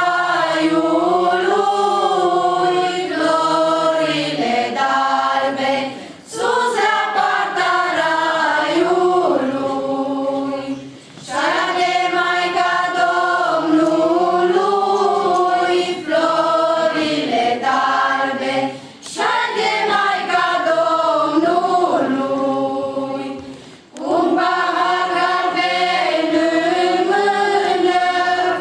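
A group of women and girls singing a Romanian Christmas carol (colindă) unaccompanied, in long phrases broken by four short pauses for breath.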